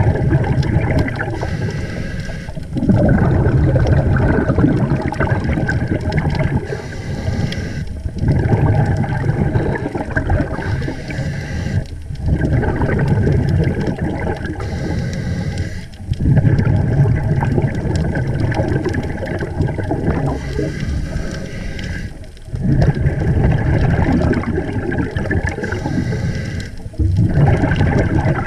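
A scuba diver breathing through a regulator underwater. Long stretches of bubble noise from each breath repeat about every four to five seconds, with short pauses between them.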